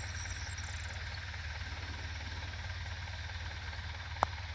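Steady low rumble with an even hiss, with one sharp click about four seconds in.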